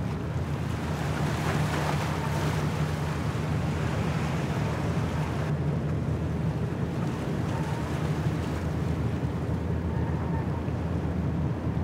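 Sea ambience: waves and wind over a steady low rumble, with no clear changes throughout.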